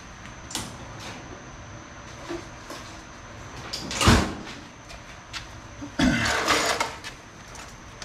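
Workshop handling noise as a tool is fetched: a few light clicks, then a loud sliding scrape about four seconds in and a longer rattling slide from about six seconds in.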